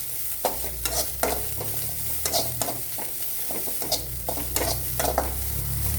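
Spatula stirring and scraping chopped vegetables around a kadai as they fry in oil and butter, with irregular scrapes every fraction of a second over a steady sizzle.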